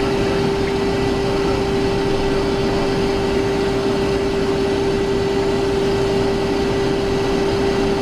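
Steady cockpit noise of a Cessna Citation XLS twin-turbofan business jet in its climb after takeoff: engine and airflow noise with a constant hum running through it.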